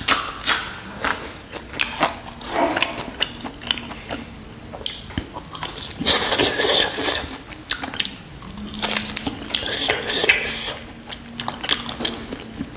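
Close-miked eating: a bite into a raw green chilli, then wet chewing, lip smacks and sucking sounds as a spiced mutton shank bone is gnawed at the mouth, in irregular bursts with sharp clicks.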